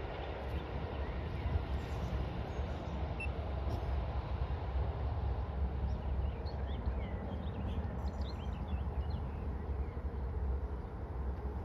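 Outdoor ambience: small birds chirping, mostly in the second half, over a steady low rumble.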